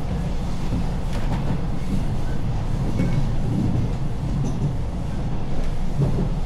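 Train running along the track: a steady low rumble.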